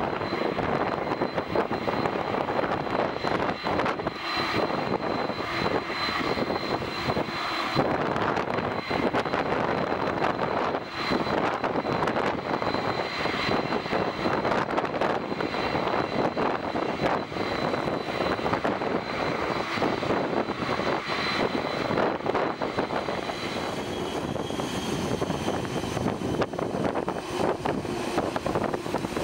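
Boeing 747-400's four turbofan jet engines running at taxi power: a steady rush of engine noise with a high whine. Near the end more whining tones join in as the jet swings its tail toward the microphone.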